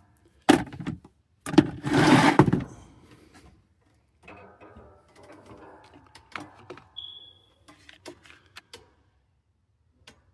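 Hands working on thermostat wiring: a sharp knock, a loud rustling scrape about two seconds in, then scattered light clicks and rustles. A short high beep sounds about seven seconds in.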